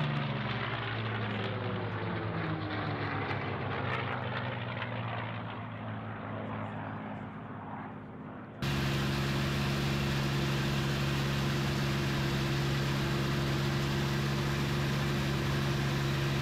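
A P-51D Mustang racer's Rolls-Royce Merlin V12 passing low, its engine note falling in pitch and fading as it goes by. About eight and a half seconds in, it cuts abruptly to a louder, steady aircraft engine drone at constant pitch, heard from inside a cockpit.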